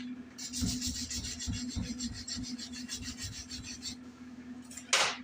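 Rapid, repeated scraping strokes of a hand tool on metal, like filing or brushing a part, lasting about three and a half seconds over a steady low hum. A single sharp knock comes near the end.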